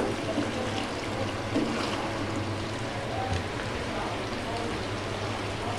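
Vegetables and chicken cooking in soy and chili sauce in a wok, a steady sizzling hiss, with a wooden spatula stirring at the start.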